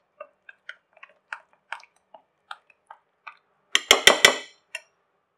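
Metal spoon clicking and scraping against a ceramic plate while stirring a thick masala paste, in irregular light taps, then several louder clinks in quick succession about four seconds in and one last click near the end.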